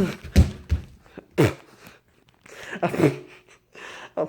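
Short bursts of a person's voice falling in pitch, with two thumps about half a second in.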